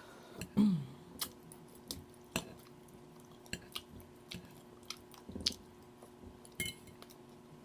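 A woman chewing crispy fried food close to the microphone, with crunches, wet mouth clicks and lip smacks scattered through. About half a second in there is a short, low vocal sound that falls in pitch.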